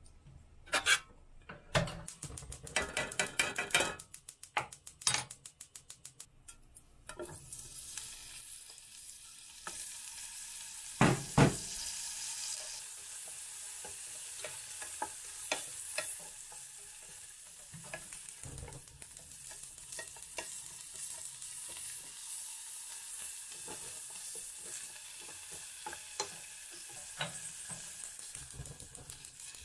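Soaked dried pollack strips sizzling as they fry in oil in a small aluminium ramen pot, stirred with chopsticks that tap against the pot. The first few seconds are scattered clatter and taps. The sizzle sets in about seven seconds in, is strongest for a few seconds, then settles to a steady frying hiss.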